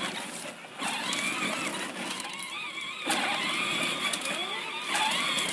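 Electric motor and gearbox of a John Deere ride-on toy tractor whining steadily as it drives.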